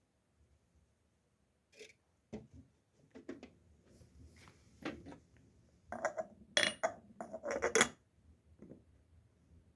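Dishes and utensils clinking and clattering, a scattering of separate knocks that grows busier and louder about six to eight seconds in.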